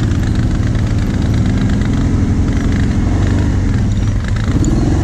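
Quad bike (ATV) engine running at low revs close to the microphone, with the camera quad moving slowly. About four seconds in, the engine note sags briefly, then rises as it is revved.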